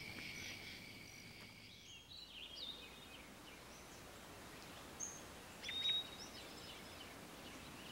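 A steady high insect trill fades out in the first two seconds, then woodland birds give short chirping calls, scattered and loudest about six seconds in.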